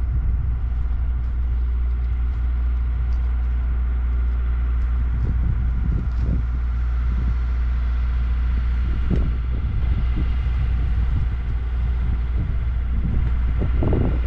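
Helicopter turbine engine and rotor running steadily: a continuous heavy low drone with steady whining tones above it, and a few brief uneven swells of noise.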